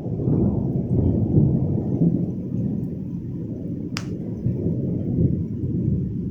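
Thunder rolling: a long, low rumble that swells at the start and dies away near the end. A single sharp click comes about four seconds in.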